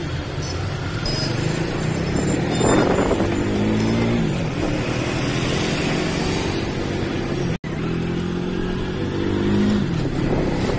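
Auto rickshaw's small engine, heard from inside the open cab, running over road noise. Its pitch climbs as it accelerates and then drops, twice, with a brief break in the sound between the two.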